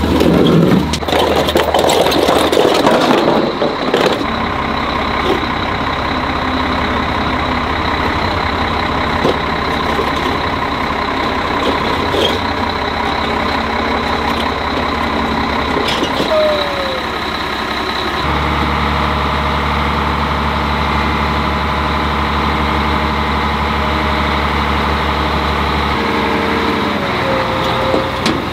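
A large engine idling steadily, its note changing a couple of times, with metal clanking from steel snowcat track sections being handled in the first few seconds and a few scattered knocks later.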